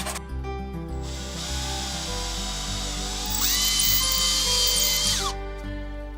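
Cordless drill running in wood: the motor starts about a second in, speeds up to a steady high whine, then winds down and stops. Background music plays throughout.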